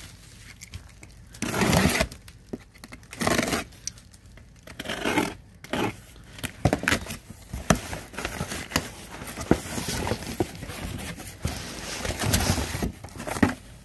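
Box cutter slitting the packing tape on a cardboard box in a few scraping, tearing strokes, then the cardboard flaps opened and the packaged products inside rustled and clicked about.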